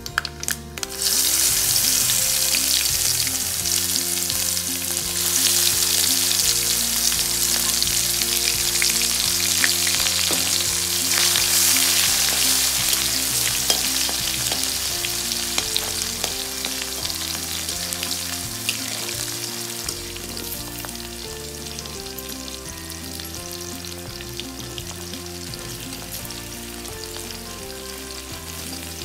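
Sliced onions hitting hot oil with panch phoron and dried red chillies: a loud sizzle starts about a second in, and the onions keep frying while stirred with a metal spatula, the sizzle slowly dying down.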